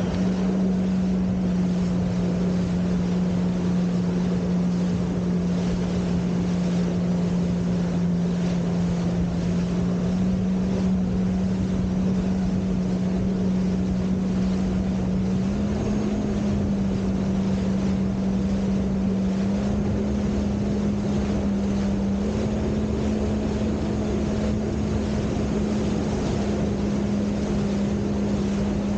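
A jet ski's engine runs steadily at cruising speed as a single drone, its pitch edging up slightly a few times.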